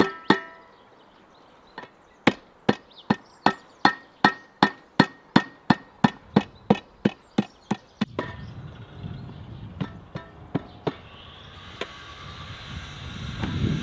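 A blade chopping on a wooden board in a steady rhythm: about sixteen even strokes, close to three a second, each with a slight ring. The strokes stop and give way to a rustling, scraping noise that grows louder near the end.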